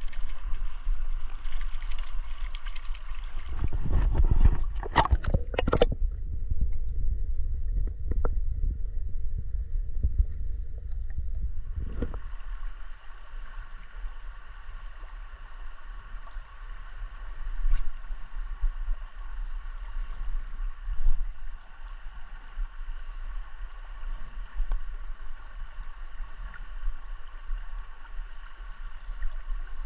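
River current rushing and gurgling steadily over rocks. In the first part there is a low rumble and a few loud knocks about four to six seconds in; about twelve seconds in the sound changes abruptly to a steadier, brighter rushing of the water.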